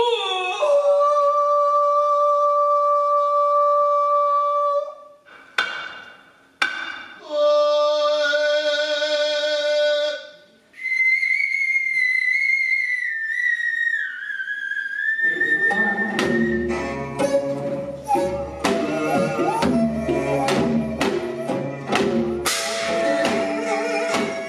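Traditional music: long held wind tones in two stretches, then a high flute-like melody that wavers and dips in pitch. About two-thirds of the way in, a full ensemble enters with many sharp drum and percussion strikes.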